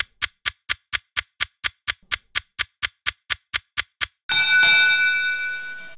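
A clock ticks quickly and evenly, about four ticks a second, like a countdown timer. About four seconds in, a bell dings once and rings out, fading away, as the timer ends.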